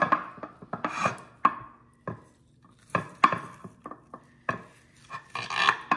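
Knife and fork cutting a grilled lamb chop on a plate, with irregular clicks and scrapes of metal against the plate and a longer scrape near the end.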